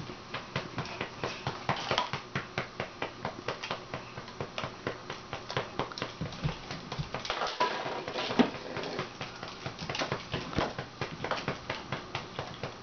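A hand patting a back over and over to bring up a burp, about three pats a second, with one harder pat about two-thirds of the way through.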